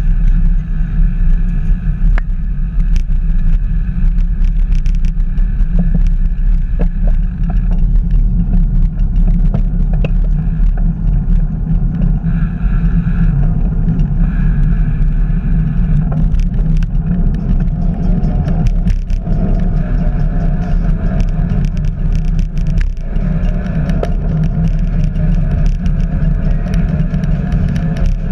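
Wind buffeting the microphone of a camera riding along on a bicycle: a loud, steady rumble, with occasional small clicks and rattles from the bike.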